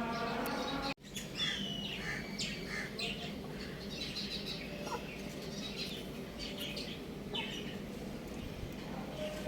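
Young chickens chirping: many short, high peeps, some sliding down in pitch, in quick irregular succession. In the first second a steady held tone runs under them and cuts off abruptly.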